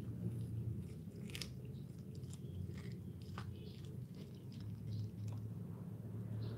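A cat chewing corn kernels: a run of short crunching clicks, over a steady low hum.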